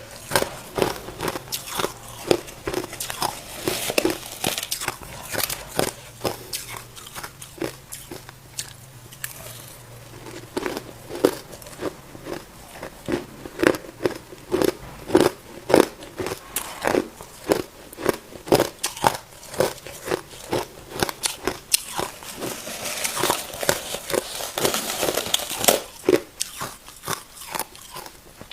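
Close-up crunching of hard ice being bitten and chewed: irregular sharp cracks several times a second, with a stretch of denser crackling near the end as the ice is ground down.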